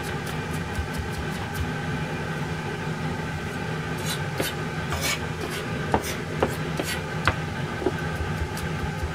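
Kitchen knife finely mincing garlic on a plastic cutting board, the blade rocked and tapped against the board in rapid, even knocks about four or five a second. Between about four and seven seconds in the chopping slows to a few sharper knocks. A steady hum runs underneath.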